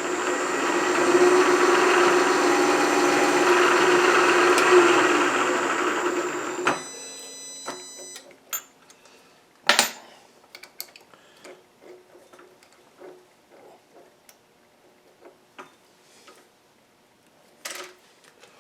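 Milling machine motor running steadily, then switched off about seven seconds in and winding down. After that come scattered light metallic clinks and taps of tools being handled.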